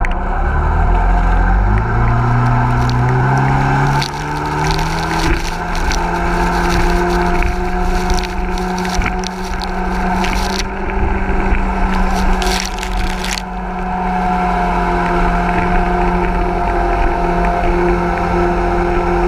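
Hison 1400 cc mini jet boat's engine accelerating, its pitch climbing over the first few seconds, then running steadily at speed across the water. Splashing spray comes in bursts over the engine sound.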